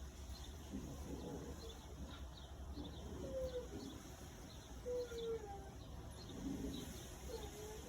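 Small birds at feeders chirping faintly and often, with a short low falling call every second or two.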